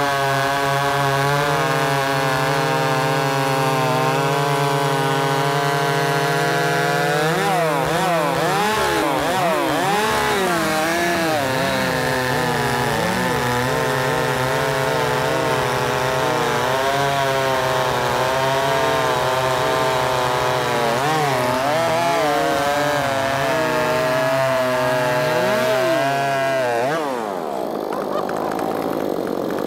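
Two ported, muffler-modded chainsaws, an Echo CS-590 and a Wemars 6220, running flat out while cutting through log rounds at the same time. Their engine notes dip and recover over and over as the chains load up in the wood, then fall away near the end as the cuts finish.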